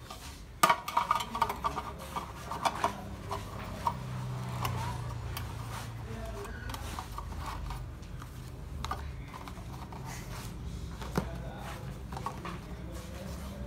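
Cardboard boxes and plastic packaging being handled while unpacking: rustles, taps and clicks, busiest in the first few seconds, then fewer.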